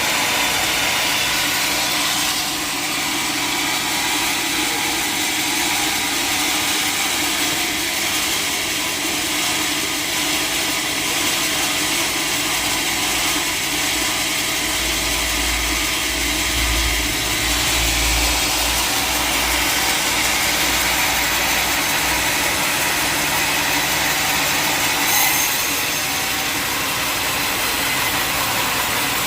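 Sawmill machinery running steadily: an engine hum under the noise of a saw working through wood, with a heavier low rumble in the middle and a brief sharp sound near the end.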